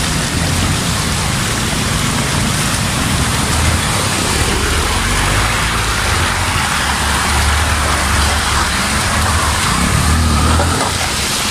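Fast, muddy stream rushing over stones, with motorcycle engines running as bikes ford it. A low engine rumble grows stronger in the second half and drops away shortly before the end.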